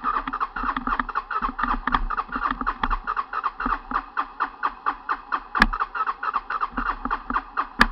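Honda TRX 300 ATV engine cranking over in an even rhythm of about six pulses a second without catching; the engine is flooded. Two sharp clicks, about five and a half seconds in and near the end.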